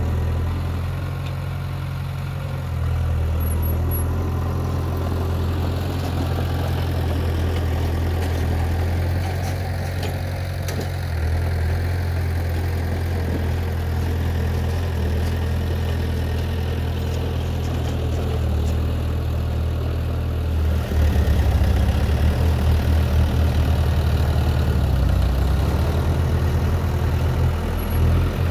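Diesel engines of heavy earthmoving machinery running steadily with a low hum. About 21 seconds in it gets louder, with a fast pulsing.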